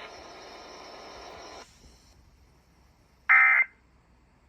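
A steady broadcast hiss cuts off about one and a half seconds in. About three seconds in comes a short, loud burst of Emergency Alert System data tone, the first of three identical warbling bursts about a second apart that make up the end-of-message signal closing the alert.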